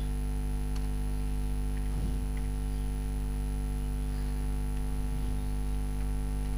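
Steady electrical mains hum, with a few faint clicks.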